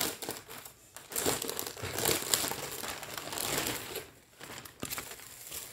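Packaging crinkling and rustling in the hands as shirts are unwrapped, in quick uneven bursts that quieten about four seconds in.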